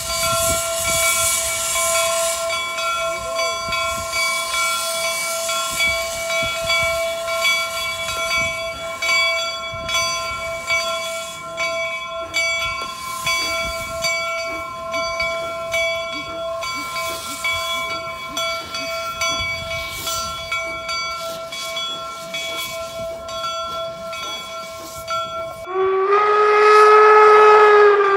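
Replica 1869 steam locomotives letting off steam: a steady hiss with several high, ringing tones held throughout. Near the end a steam whistle sounds one long, loud blast, cut off by a shorter one.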